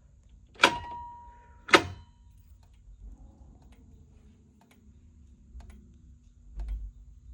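Simplex 2099-9754 fire alarm manual pull station being pulled: two sharp metallic clacks about a second apart, the first leaving a brief ring. Faint scattered ticking follows as the strobes flash.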